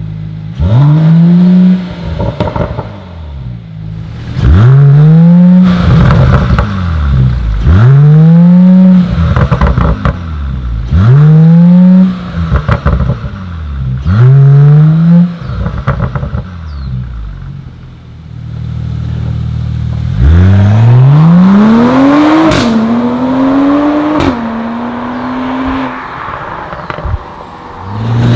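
Mercedes-AMG E53's turbocharged 3.0-litre inline-six through an Fi Exhaust valved catback. It is blipped five times in quick free revs, each rising and dropping back, then idles briefly. About twenty seconds in it pulls hard under acceleration, the note climbing through two upshifts.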